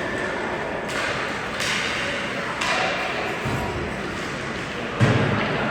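Ice hockey rink sounds: a series of thuds of pucks or players against the boards, each with a short hiss from skates on the ice. The loudest thud comes about five seconds in.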